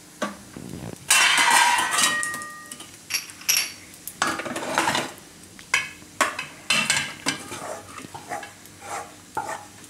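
Spatula scraping and knocking against a kadai as dry-roasted gram flour is scraped out onto a steel plate, with a louder ringing metal clatter about a second in.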